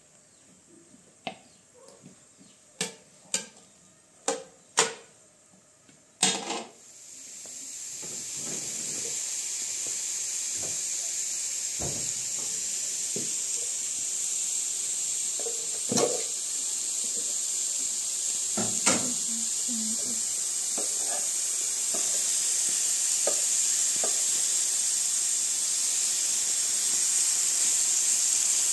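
A metal skimmer clinks against a metal steamer pot several times. Then a steady sizzling hiss takes over, from chopped onions frying in hot fat in a wide pan, with an occasional clink of a spoon.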